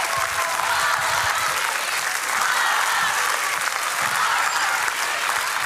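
Large studio audience applauding steadily, with cheering voices mixed in.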